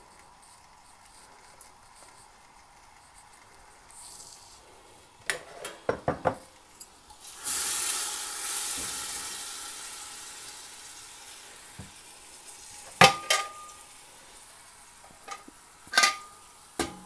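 Marinated chicken pieces sizzling in a hot pressure cooker: a hiss starts suddenly about halfway through and slowly dies away. Metal utensils knock and clink against the pot, with two sharp ringing clinks near the end.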